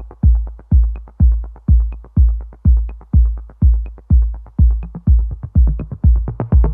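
Electronic dance music: a deep kick drum on a steady beat about twice a second, with light ticks between the beats and a faint high chime about once a second.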